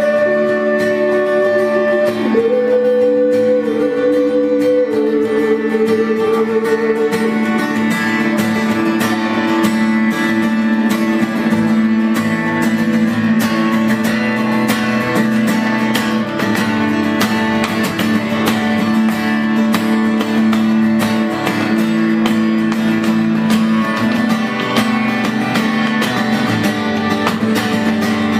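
Acoustic guitar strummed steadily, with a held low note running under the chords.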